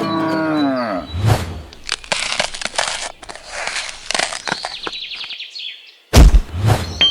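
A cow mooing: one long call falling in pitch. It is followed by a run of short scraping, rustling noises and a loud low thump about six seconds in.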